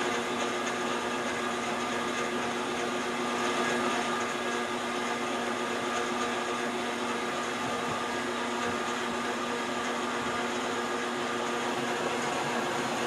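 Metal lathe running a long cutting pass with a carbide tool on a large shaft's bearing journal. It makes a steady hum with several held tones over an even hiss, unchanging throughout.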